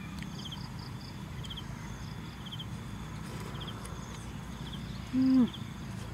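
Countryside ambience: a steady low rumble under short high chirps that repeat every half second to a second. About five seconds in, a brief low hoot-like tone sounds, the loudest thing here, dropping in pitch as it ends.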